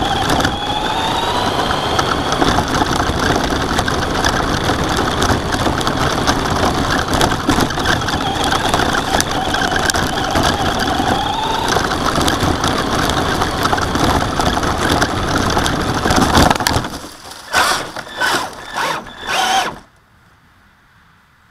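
Onboard sound of a Traxxas Slash RC short-course truck driving hard over gravel: a motor whine that rises and falls in pitch over a dense crunching, rattling noise. About 17 seconds in, it crashes into dry brush and leaves in a few short loud bursts, then stops, and only a faint hiss remains.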